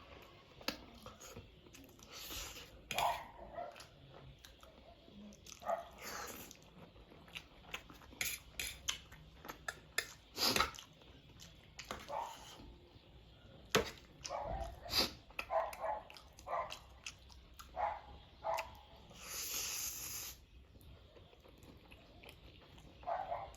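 Close-up eating sounds of spicy instant noodles: repeated wet chewing, smacking and slurping in short irregular bursts, with a longer slurp near the end.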